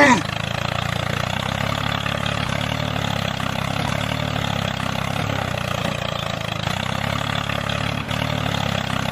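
Tractor-type engine running steadily at an even, low chug, with no change in speed.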